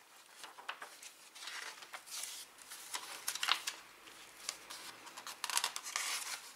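Glossy paper pages of a sticker album being turned and smoothed down by hand: irregular rustling and swishing of paper with a few sharp clicks.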